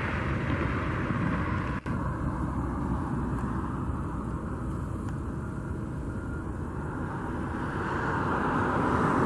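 Steady road traffic noise from passing vehicles, growing louder near the end as one comes closer.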